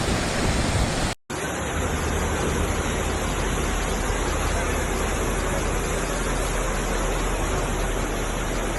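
Floodwater rushing through an overflowing gully, a steady even rush of water, broken by a brief gap about a second in.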